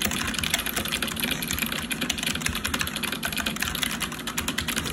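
Fast continuous typing on a mechanical keyboard with clicky blue switches whose click jacket has been trimmed with scissors, meant to give a less noisy, more consistent click. Many key clicks a second, without a break.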